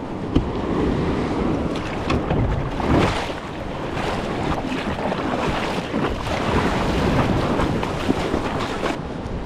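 Sea water washing and surf waves, with wind buffeting the microphone.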